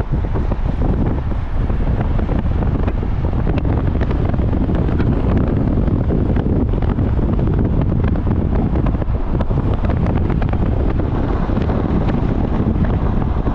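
Steady wind buffeting the microphone over the road noise of a car travelling at highway speed.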